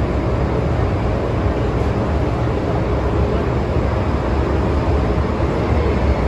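MTR Tsuen Wan Line M-train running, heard from inside the car: a steady, loud rumble of wheels on track and running gear.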